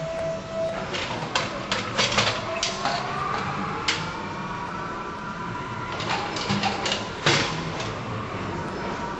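Mechanical tire-gripping lift-assist at work: clanks and knocks of the gripper and the tires being handled, over a motor whine that rises in pitch for a few seconds and then levels off. The loudest knock comes near the end.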